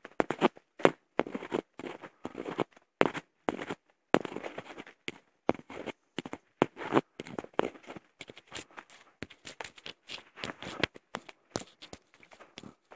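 Footsteps crunching over dry leaf litter and twigs on a dirt forest trail: a dense, irregular run of sharp crunches, several a second.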